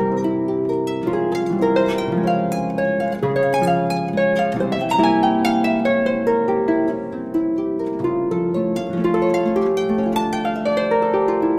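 Solo harp playing a sonatina: a steady stream of plucked notes that ring on and overlap one another.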